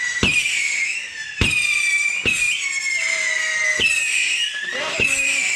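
Whistling fireworks going off: five sharp launch pops about a second apart. Each pop is followed by a shrill whistle that slides slightly down in pitch, and the whistles overlap.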